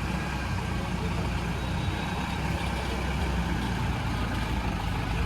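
Heavy truck engine running steadily, a low rumble.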